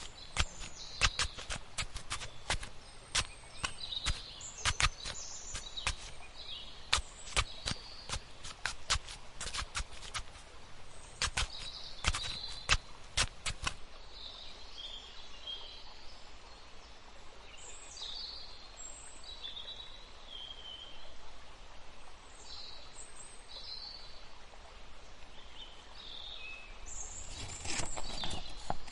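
Crackling clicks and scrapes of fingers digging into dry soil for about the first half. After that the clicks stop and birds chirp over a steady background hiss.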